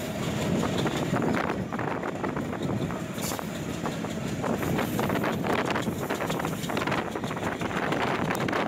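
Passenger train running at speed, heard from an open carriage doorway: a steady rumble and rattle of the carriage on the track, with wind buffeting the microphone.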